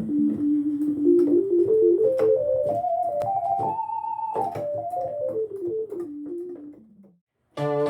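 Vintage-style keyboard preset from the Arturia Analog Lab V software synthesizer playing a single-note run that climbs a scale to a peak and steps back down, fading out near the end. Just before the end a new, fuller sustained sound comes in.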